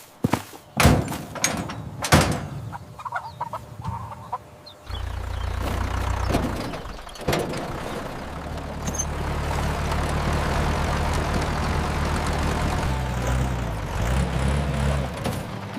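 Several sharp knocks, then about five seconds in an engine starts up and runs with a steady low hum, its pitch wavering near the end.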